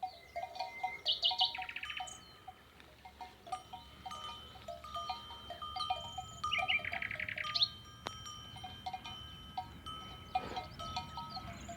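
Songbirds singing, with fast rattling trills, over a continual irregular clinking of small bells like those worn by grazing sheep or goats.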